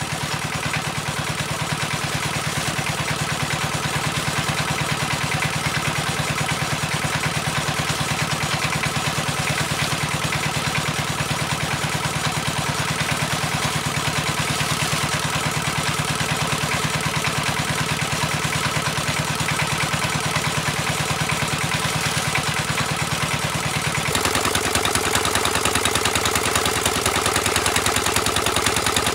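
Engine of a well-drilling rig running steadily while it blows water up out of the newly drilled well to flush it clear. Near the end the engine note shifts and grows a little louder.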